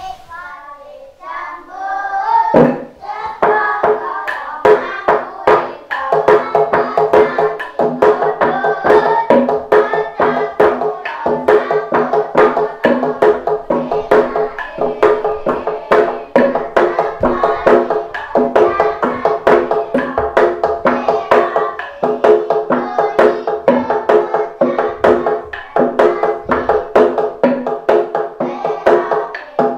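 Gejog lesung: several wooden pestles pounding a hollow wooden rice-pounding trough in a fast interlocking rhythm. Each knock rings at a few fixed pitches. A voice sings a short phrase before the pounding starts about two and a half seconds in.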